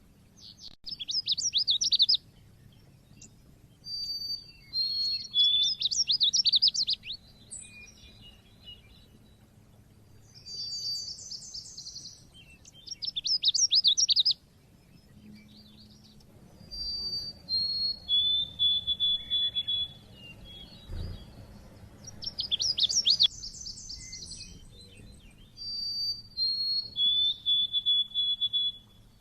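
White-eye (pleci) song: repeated bursts of rapid, high chirping notes about two seconds long, alternating with phrases of clear whistled notes stepping downward in pitch.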